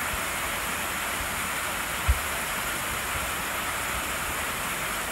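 Steady rushing of a waterfall pouring down a rock face into a shallow rocky pool, with one brief low thump about two seconds in.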